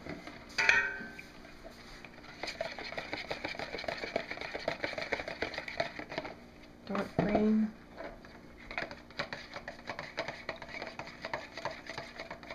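Metal spoon stirring thick soap batter in a plastic cup: a fast, uneven run of small scraping clicks against the cup's sides. It pauses briefly for a louder knock about seven seconds in, then goes on.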